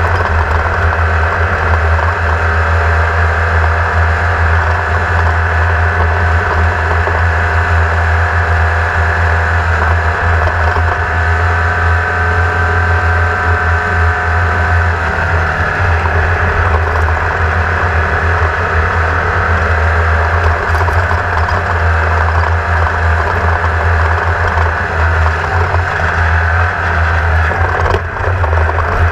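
Engine of a 1600-class off-road race car running steadily, heard on board with a rattling low drone and noise from the ride. Its pitch shifts a little about halfway through.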